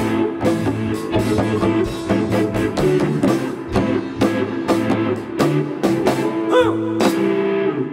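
Live rock band playing: electric guitars with bent notes over bass and a drum kit, with steady drum hits.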